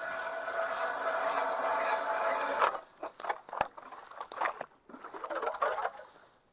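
Hand ice auger boring through clear ice: a steady grinding that stops sharply about two and a half seconds in, followed by irregular crunching and scraping of ice chips as the blades work the hole.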